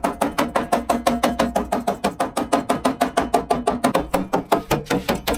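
Rapid, even hammering on aluminum sheet, about eight strikes a second, each with a brief metallic ring.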